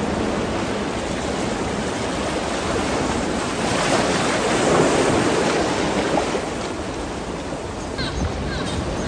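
A steady rushing noise, swelling slightly about halfway through.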